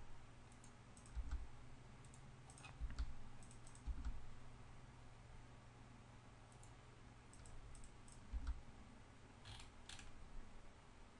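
Faint, scattered clicks of a computer mouse and keyboard, about half a dozen spread over several seconds, over a steady low hum.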